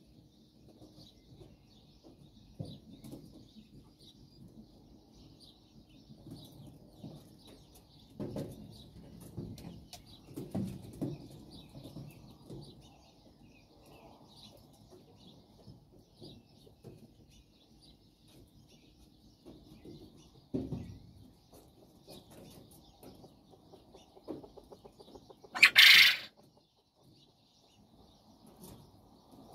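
Japanese quail rustling and scratching in bark chips, with faint continuous high chirping. Near the end comes one short, loud, harsh call, the loudest sound.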